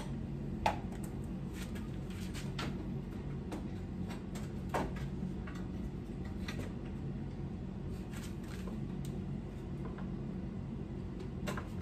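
Scattered light clicks and knocks of metal and plastic as a headlight is unfastened and pulled from a pickup's front end, over a steady low hum.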